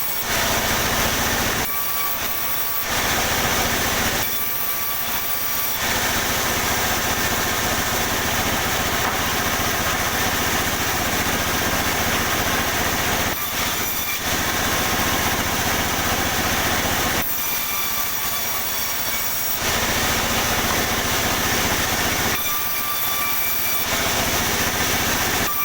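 Sawmill saw cutting pine boards: a dense, loud cutting noise over a steady engine hum. The cutting noise drops away briefly about five times while the engine keeps running.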